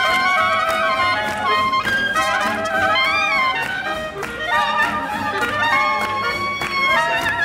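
Jazz horn section of clarinet, two saxophones and trumpet playing a hot swing tune together, the clarinet prominent among several melodic lines weaving at once.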